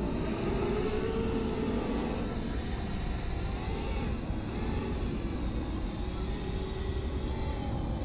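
Six-inch FPV quadcopter's four 2207 brushless motors and 6-inch propellers whining overhead. The pitch rises and falls continually as the flight controller varies motor speed while the drone flies itself home on GPS return-to-home.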